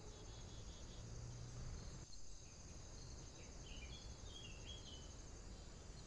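Faint woodland ambience: a steady high-pitched chirring of insects, with a few short bird chirps about halfway through.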